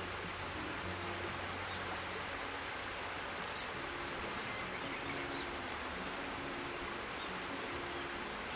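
River water flowing steadily, with a few faint, short bird chirps high above it.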